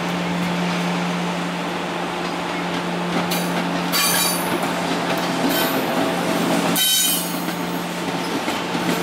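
A Transilien train hauled by an SNCF BB 7600 electric locomotive moving slowly over station pointwork, with a steady low hum. Its wheels squeal in several short, high-pitched spells from about three seconds in.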